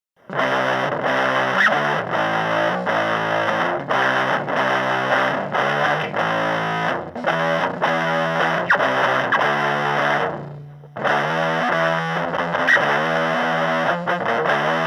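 Distorted electric guitar played through a Fender Mini Twin miniature amplifier: chords struck in quick succession, starting just after the beginning, letting one ring down and briefly stop about ten seconds in, then playing on.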